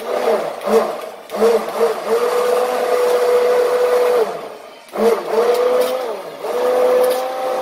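Handheld immersion blender pureeing a pot of braised oxtail sauce with its vegetables. The motor is pulsed in a few short bursts, then runs steadily, stops briefly a little past four seconds in and starts again.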